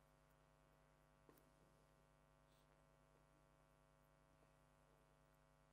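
Near silence: a faint, steady electrical hum, with one faint click about a second in.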